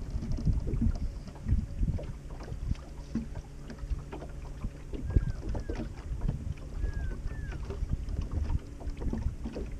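Wind buffeting the microphone and small waves slapping irregularly against the hull of a bass boat, with a steady faint low hum underneath.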